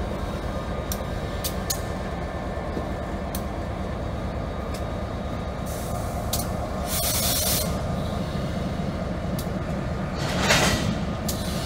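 A string of railroad tank cars rolling slowly, with a steady low rumble and sharp wheel clicks every second or so. Twice, around the middle and near the end, there is a louder burst of hissing.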